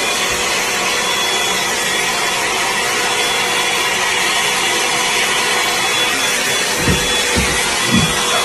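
Hot air brush (blow-dryer brush) running steadily: a constant rush of blown air with a thin high whine.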